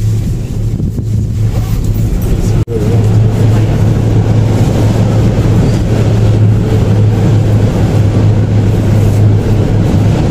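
Steady low rumble and hum inside a moving gondola cable car cabin as it rides along the cable. The sound drops out for an instant about two and a half seconds in.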